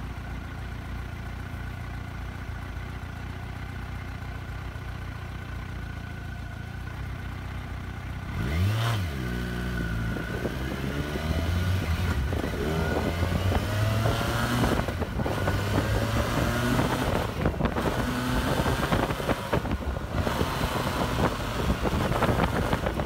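Kawasaki Versys 1000's inline-four engine idling steadily, then blipped about eight seconds in as the bike pulls away. It accelerates through the gears, the pitch climbing and dropping back with a short break at each upshift, about three times, while wind hiss builds.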